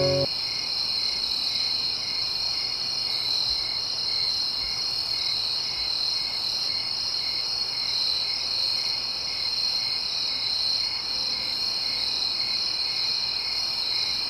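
Steady chorus of crickets chirping, a continuous high trill with a lower chirp pulsing about three times a second: night insect ambience.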